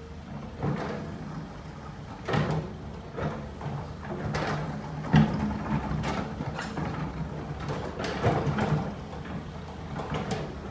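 Excavator diesel engine running steadily under load, with irregular clanks and scrapes of the steel bucket working stone, the loudest about five seconds in.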